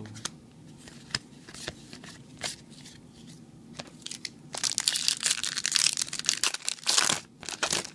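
Light taps and clicks of cards being handled, then a dense crinkling and tearing of a foil Yu-Gi-Oh booster-pack wrapper being opened, starting about halfway through and running until near the end.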